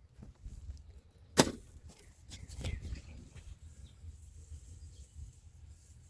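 One sharp knock about a second and a half in, the loudest sound, followed about a second later by a short run of lighter clattering knocks, over a low rumble.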